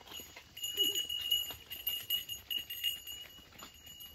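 Small bells on a running herd of goats jingling continuously, with light clatter of hooves on dry ground.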